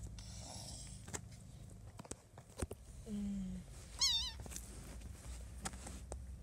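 Kittens playing: one gives a short, high, wavering mew about four seconds in, just after a brief lower sound, among scattered light taps and scuffles.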